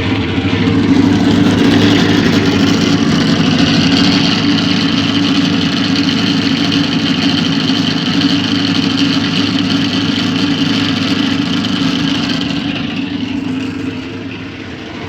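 Maytag washing machine spinning with a loud, steady grinding noise that dies down near the end; the technician takes it to sound like worn bearings.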